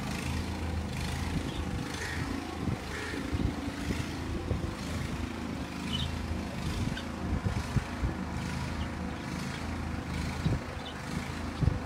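Steady low rumble under an even hiss of outdoor background noise, with no animal calls.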